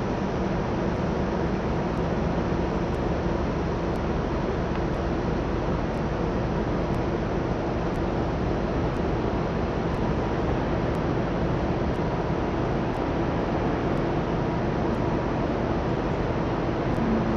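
Steady city night hum heard from high above the street: an even rushing noise of distant traffic and building machinery, with a faint low hum underneath.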